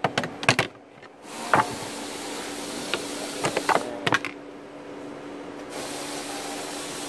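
Sharp clicks and knocks of hard plastic dashboard trim being handled and pried with a flathead screwdriver, in small clusters, over a steady low hum and hiss.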